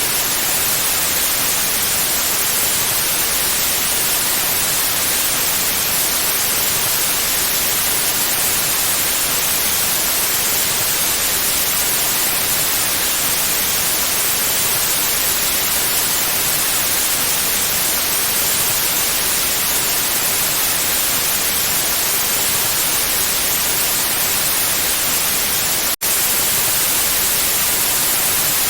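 Steady electronically generated white noise: an even, bright hiss with no tone or rhythm. It drops out for an instant near the end, then resumes at the same level.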